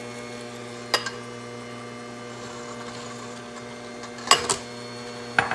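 Sunbeam stand mixer running at low kneading speed with dough hooks, a steady motor hum. A few sharp knocks, the loudest a double knock about four seconds in, as the ceramic bowl of yeast is tipped and tapped against the steel mixing bowl.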